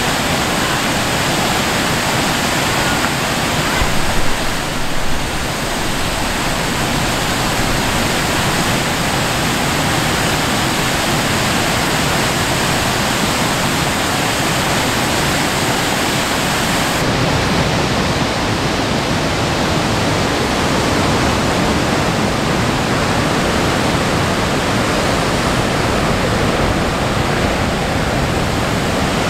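Waterfall rushing steadily, the water of Alamere Falls' cascades pouring over rock ledges in an even, loud wash of noise that swells briefly about four seconds in.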